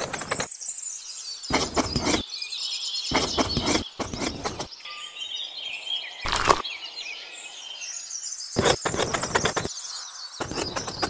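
A tiny trowel scraping and dabbing wet cement, in a series of short, separate scrapes about one every second or two. Birds chirp faintly in the background.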